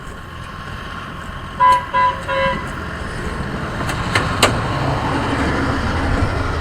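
A rail vehicle running along the track with a steady rumble. Its horn gives three short toots a couple of seconds in, followed by a couple of sharp clicks.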